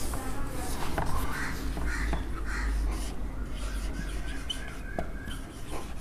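A whiteboard duster rubbing across the board, then a marker scraping and squeaking as it writes on the whiteboard, over a steady low hum.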